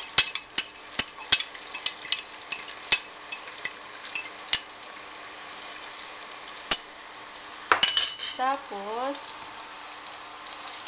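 Beaten egg sizzling in hot butter in a nonstick frying pan: a steady hiss with a quick run of sharp clicks and pops over the first few seconds, a single pop about two-thirds through and a short cluster of them near the end.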